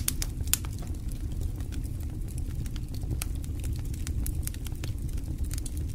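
A steady low rumble with scattered crackles and sharp pops at irregular intervals.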